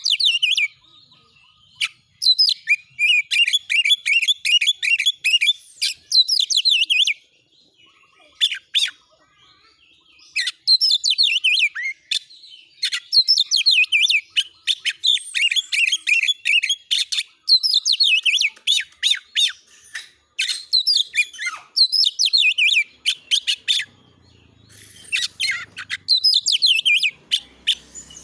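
Oriental magpie-robin (kacer) singing in long, loud phrases of rapid repeated notes, the fast 'shooting' (nembak) song that keepers use as a training recording to rouse other kacer, with short pauses between phrases.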